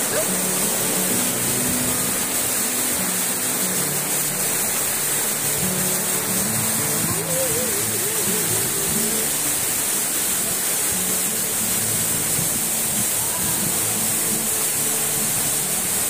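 Steady rushing of a tall waterfall pouring onto rocks, with background music of short held notes laid over it.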